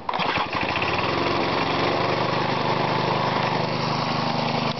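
Briggs & Stratton lawnmower engine coming on abruptly and settling into a steady run within about two seconds, belt-driving a homemade single-cylinder air compressor converted from another small engine.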